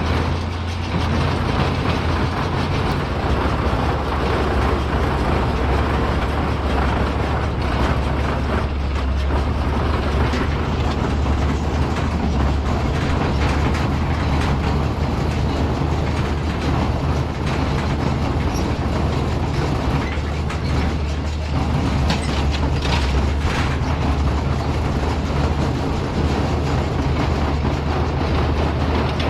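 Tractor and John Deere small square baler running steadily while baling hay, a low engine drone under a continuous mechanical clatter.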